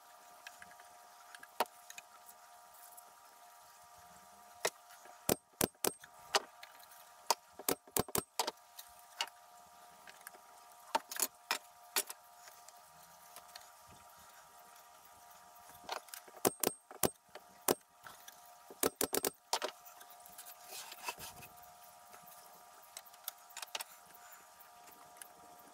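Loose wooden slats being set down and shifted on a wooden crate, clattering and knocking against each other and the frame in clusters of sharp taps. A steady faint hum runs underneath.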